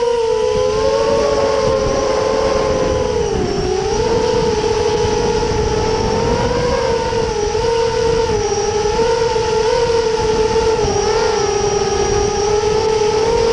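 Electric motors and propellers of an FPV model aircraft whining steadily in flight, the pitch wavering up and down with the throttle and dipping briefly about three and a half seconds in, over a low rushing noise.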